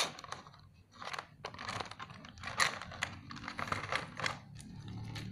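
Clear plastic blister trays of action-figure packaging being handled, giving irregular light clicks and crackles.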